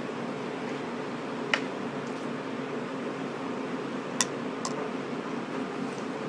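Steady room hum and hiss, like a fan or air conditioner running, broken by three sharp clicks: one about a second and a half in and a quick pair about four seconds in, as a hand handles things at the table.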